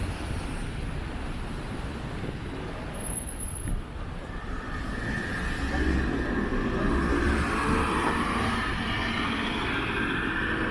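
Street traffic noise, with a motor vehicle passing close by: its sound swells about halfway through, with a steady whine, then fades near the end.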